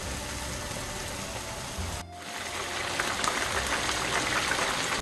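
Hot oil sizzling steadily as cornstarch-coated potato balls deep-fry in a pan. After a short break about two seconds in, the sizzle returns with more crackling as pieces of chicken karaage fry.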